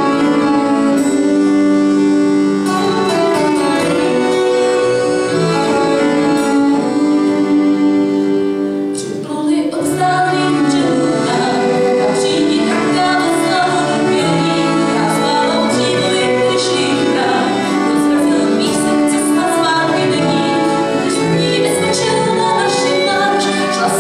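Folk band playing live on accordion, fiddle and acoustic guitar, with a woman singing. The long held notes give way to a brief dip about nine seconds in, and the tune then picks up with a livelier strummed rhythm.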